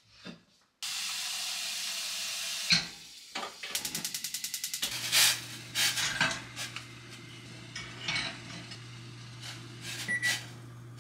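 Steady hiss for about two seconds, then a knock and a gas hob's igniter clicking rapidly for about a second and a half. The burner then lights and runs with a steady low rush, with pots and pans clinking on the grates.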